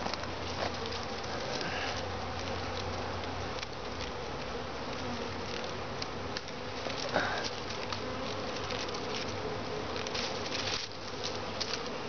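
Swarm of honey bees buzzing steadily, many bees humming at once, with a few brief clicks and rustles over it.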